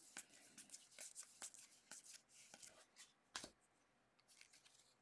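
Donruss football trading cards being flipped through by hand: faint soft ticks and swishes as each card slides off the stack, with one sharper click about three and a half seconds in.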